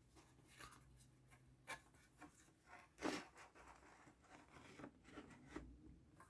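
Faint scattered scrapes and small clicks of tools working at the PS5's HDMI port on the circuit board as it is pried off, with one louder scrape about three seconds in.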